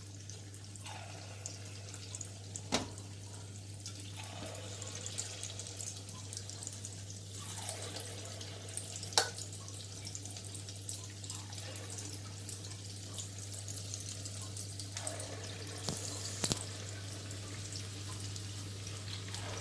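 Egg-and-vegetable batter sizzling and bubbling in hot oil in the cups of an unniappam pan, a steady crackling hiss with a few sharp clicks spread through it.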